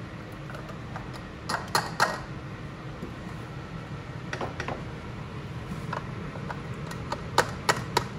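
A utensil clinking and knocking against a canning funnel and glass jars while the jars are filled with pickle mixture. A cluster of sharp clicks comes about a second and a half in, a few softer ones around four and a half seconds, and another cluster near the end, over a steady low hum.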